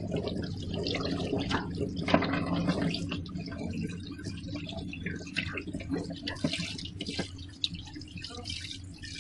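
Raw pork pieces being rubbed and turned by hand in a wet plastic colander in a steel sink: irregular wet squelches and dripping splashes. A steady low hum runs underneath.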